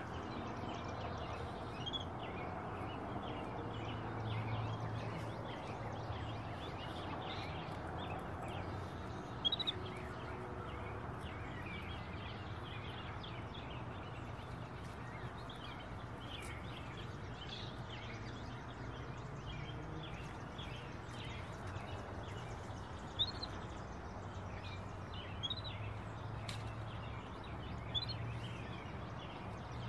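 Quiet outdoor ambience: a low steady hum with faint, scattered short chirps and a few soft clicks now and then.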